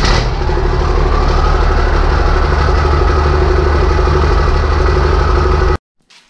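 Heavy engine running steadily and loudly, cutting off abruptly near the end.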